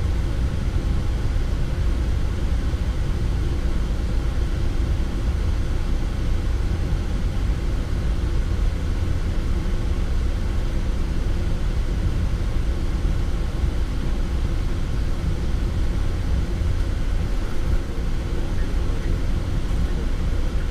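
Steady low rumble inside the cockpit of a Boeing 787 taxiing on the ground: the engines and airflow running with the wheels rolling along the taxiway.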